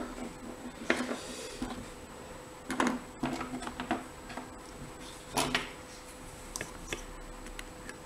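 Lock pick and tension wrench being worked into the keyway of a dimple euro cylinder lock: small, scattered metal clicks and scrapes, a few of them sharper.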